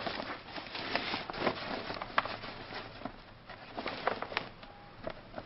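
Silver reflective softbox fabric rustling and crinkling as the tension rods are slid into its corner pockets, with irregular light clicks and taps from the rods.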